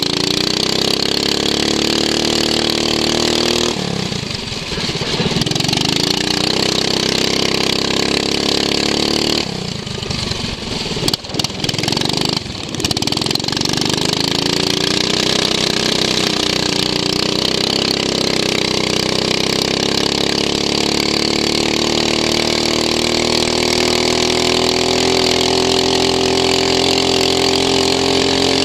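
Racing lawn mower's engine heard from on board, running hard with its pitch climbing as it picks up speed. It drops back briefly about four seconds in, then again from about ten to thirteen seconds with a few sharp knocks, before pulling back up to a steady high drone.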